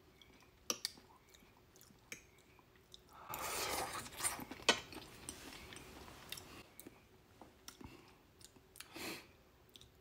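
Close-miked chewing of a mouthful of green beans: soft wet mouth clicks and smacks. There is a louder rustle about three seconds in, a sharp click shortly after, and another brief rustle near the end.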